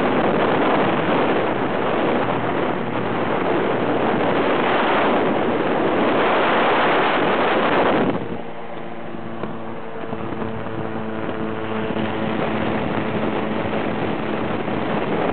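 Ultralight aircraft in flight: wind rushing over the microphone masks the engine, then about eight seconds in the wind noise drops and the engine is heard running steadily.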